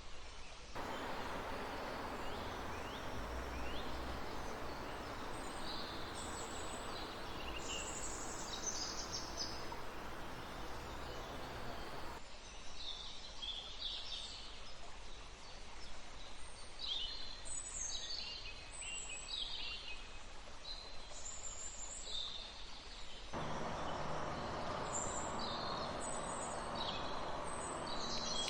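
Many forest birds chirping and trilling over each other, with a steady rush of flowing river water that cuts in and out abruptly twice.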